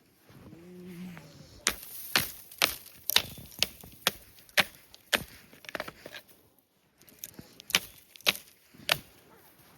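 Footsteps crunching through deep snow, sharp crunches about two a second with a short pause partway through.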